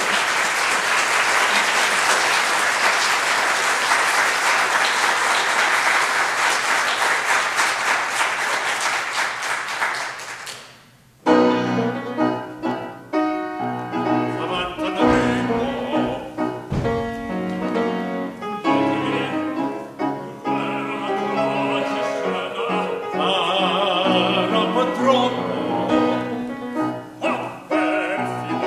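Audience applauding, fading out about ten seconds in; after a brief pause an accompanying piano starts playing, and an operatic singing voice joins over it a few seconds later.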